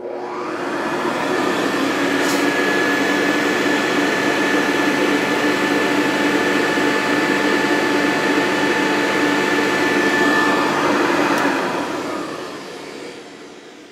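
Early-1970s Hoover U4007 upright vacuum cleaner switched on, its motor spinning up over about two seconds to a steady run with a high whine. About eleven seconds in it is switched off and the motor winds down.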